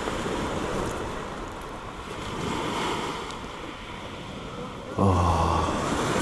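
Small waves washing onto the beach, with wind on the microphone and a swell in the surf about halfway through. About five seconds in, a louder low steady hum cuts in.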